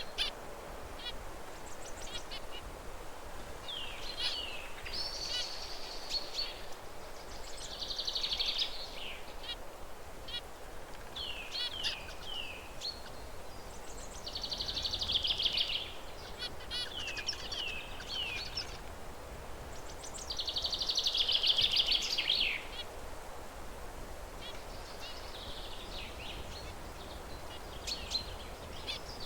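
Zebra finches calling and singing: short nasal, downslurred calls and buzzy, rattling song phrases about a second long, repeated every few seconds. The loudest phrases come around the middle and about two-thirds of the way through.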